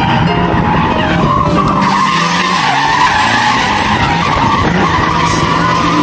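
Drift car sliding sideways, its tyres screeching continuously on the asphalt over the steady note of the engine running hard.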